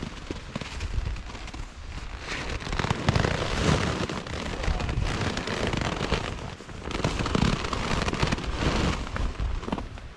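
Gusting wind shaking a nylon hammock tarp, the fabric flapping and crackling, with wind buffeting the microphone; the gusts swell a few seconds in and again later. Nylon hammock fabric rustles as someone shifts about in it.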